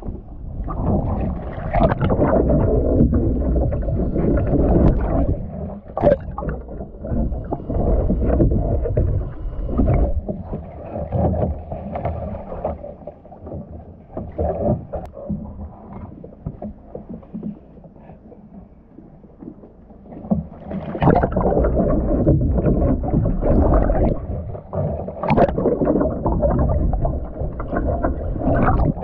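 Water splashing and sloshing against a surfski's hull right by the deck-mounted microphone, with the splashes of paddle strokes and sharp slaps of water, quieter for a few seconds in the middle. Near the end the boat rolls over in a practice roll and the microphone goes under water.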